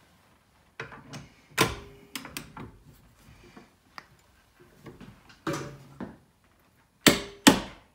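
Harbor Freight torque wrench tightening a 3/4-inch grade 8 nut and bolt to 150 ft-lb: sharp metallic clicks with a brief ring. There are a few quieter clicks through the middle, then two loud ones about half a second apart near the end, the wrench signalling that its set torque has been reached.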